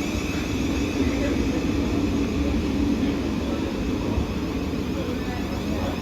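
Southern Class 377 Electrostar electric multiple-unit train running into the platform: a steady rumble of the wheels on the track with a held traction-motor hum and whine.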